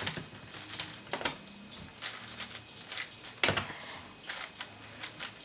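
ShengShou 9x9 puzzle cube being turned by hand: irregular plastic clicks and clacks as its layers are twisted. The layers are stiff and hard to turn.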